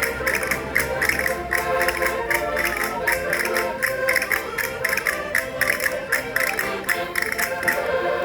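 Concertinas playing a lively folk dance tune in sustained chords, over a fast, steady percussive beat of about five strokes a second.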